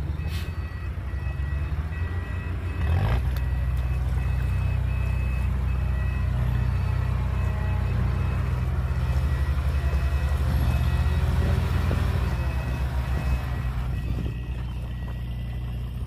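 Dump truck's diesel engine running steadily, louder from about three seconds in and easing near the end, while its reversing alarm beeps repeatedly through the first half as it backs up to tip its load.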